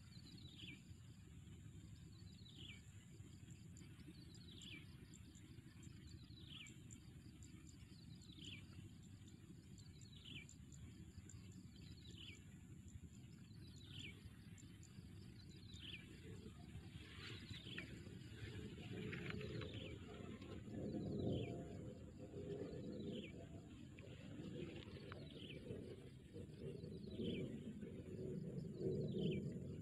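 A bird repeating a single short downward-slurred whistle about every two seconds, over a faint low rumble that grows louder in the second half.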